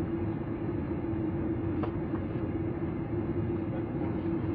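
Airliner cabin noise while taxiing after landing: the jet engines running at taxi power and the cabin air, heard from inside as a steady hum with one constant droning tone.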